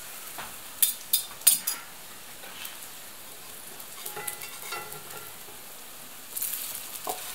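Semolina pancakes sizzling in hot oil in a cast-iron frying pan, a steady frying hiss. About a second in comes a quick run of sharp clicks as a metal spatula knocks against the pan while the pancakes are turned.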